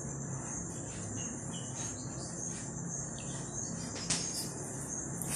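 Chalk scratching on a blackboard in short strokes as a drawing is traced, the clearest stroke about four seconds in. Behind it runs a steady high-pitched drone with a low hum.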